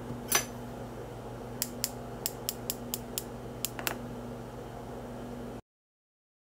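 A sifter being tapped to dust powdered sugar over madeleines: one louder knock, then about ten sharp ticks over two seconds, over a low steady hum that cuts off abruptly near the end.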